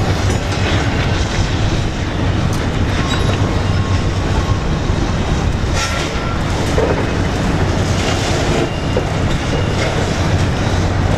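Heavy diesel demolition excavators running: a steady low engine rumble with a few sharp clanks of concrete and steel breaking up.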